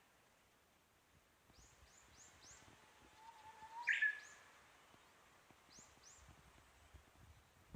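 A Japanese bush warbler sings one song phrase: a low held whistle that leads into a short, louder, higher note. Another small bird gives quick high chirps in runs of three or four.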